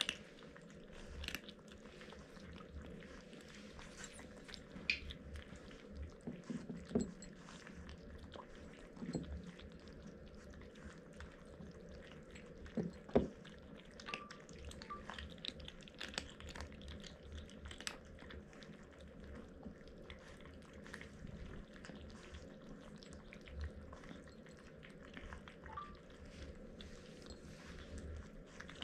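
Several kittens eating dry kibble from ceramic bowls: soft, irregular crunching and small clicks throughout.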